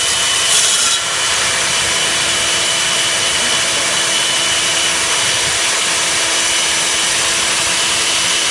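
Hilti DD160 diamond core drill running steadily while it bores, a constant motor tone over an even grinding hiss.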